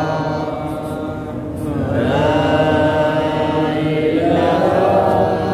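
A congregation of men chanting an Islamic devotional chant together, holding long drawn-out notes; the sound eases about a second in, then the next phrase swells up with the voices rising in pitch.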